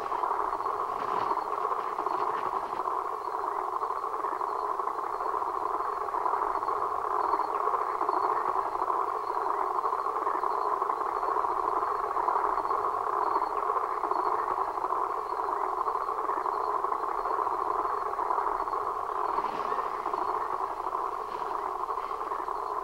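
Steady droning hiss centred in the middle of the range, with a faint high whine above it and a few soft ticks: an electronic drone from the film's self-made experimental score.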